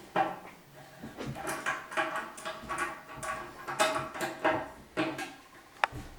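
Clinking and scraping of metal plumbing fittings being handled and threaded on while connecting water supply lines: a run of short, uneven knocks with a sharp click near the end.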